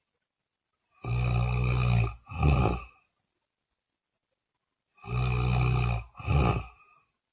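A woman snoring loudly: two snores about four seconds apart. Each is a long, low snore of about a second followed at once by a shorter one, with silence between.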